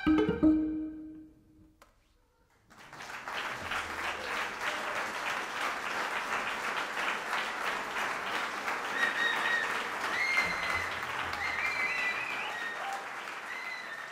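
The last note of a cello and clarinet duo rings and dies away. After about a second of silence an audience applauds, with a few whistles, and the applause fades near the end.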